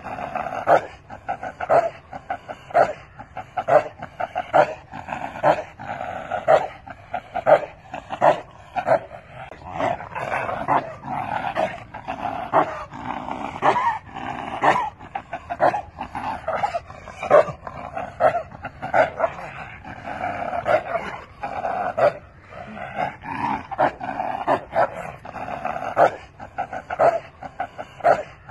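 A dog barking over and over, about two barks a second, without a break.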